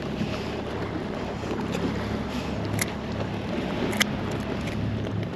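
Outboard engine of a police patrol boat running steadily as a low hum, under wind on the microphone and water against the kayak. Two short sharp clicks come through, one just before three seconds in and one about four seconds in.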